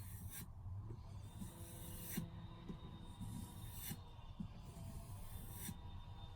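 Japanese knife blade drawn across a sharpening stone in slow, faint strokes, four scrapes about two seconds apart, over a low steady hum.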